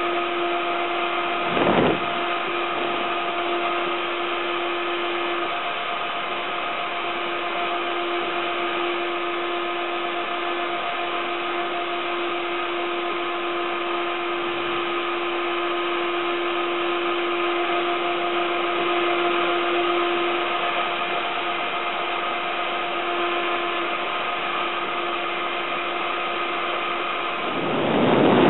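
Routout Z90 CNC router's spindle running steadily with a steady whine while milling a printed circuit board, with one brief knock about two seconds in.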